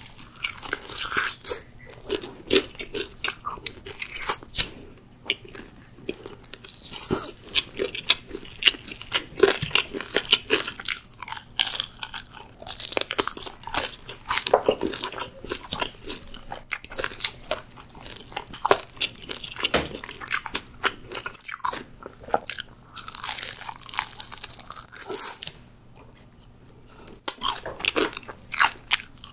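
Crispy fried chicken being bitten and chewed close to the microphone: a steady run of irregular, sharp crunches of the coating, with a brief lull near the end.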